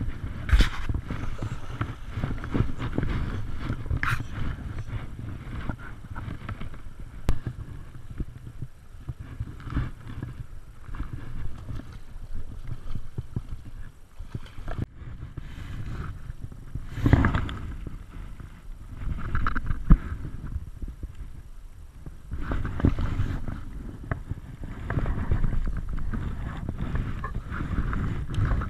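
Stream water running over a rocky riffle, with wind rumbling on the camera microphone. Irregular knocks and splashes come through as a golden rainbow trout is played to the bank and held in the shallows.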